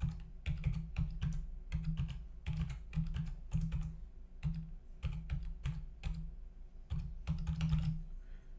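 Typing on a computer keyboard: quick keystrokes in uneven runs, with brief pauses between them.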